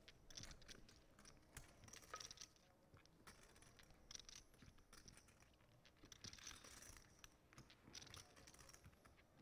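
Near silence at a poker table, with faint, scattered clicks and rustles of poker chips being handled.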